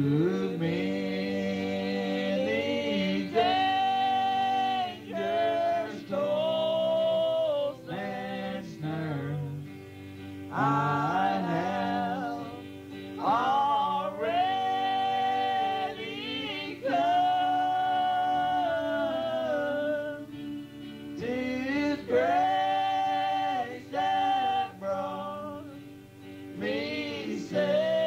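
A vocal group singing a slow gospel song, in long held notes over a steady accompaniment.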